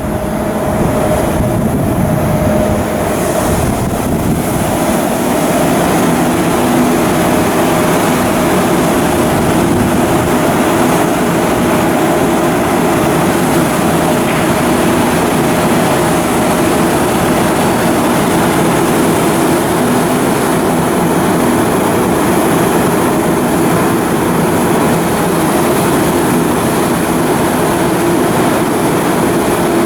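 Heavy machinery running steadily: a constant loud drone with a steady hum on top, unchanging throughout.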